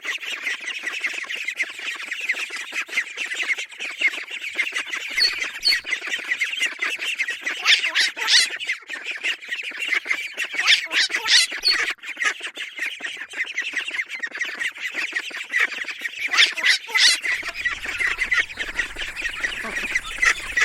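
A group of ducklings peeping continuously in a dense, high-pitched chatter, with a few louder, sharper peeps standing out now and then.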